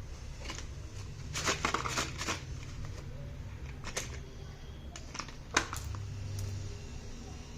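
Slate pencils and their packaging being handled: a quick run of sharp clicks about one and a half seconds in, then single sharp clicks about four and five and a half seconds in, over a steady low hum.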